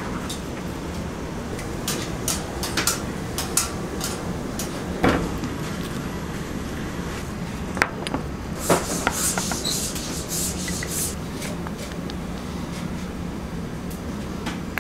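Metal tongs clicking and knocking against food and a cutting board while grilled food is arranged, over a steady low kitchen hum. A short hissing stretch comes near the middle.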